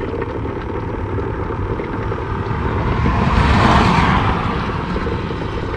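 A car passes on the road: its engine and tyre noise swells to a peak a little past halfway, then fades. Underneath is a steady low rumble.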